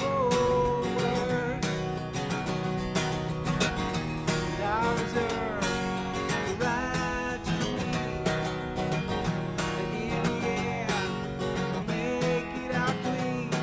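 Acoustic guitar strummed steadily under a sliding melody line, during a song.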